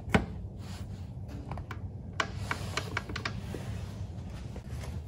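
Small metal parts of a Norton Commando's primary drive being handled during assembly: a sharp click just after the start, then a scattered run of light metallic clicks and taps, over a steady low hum.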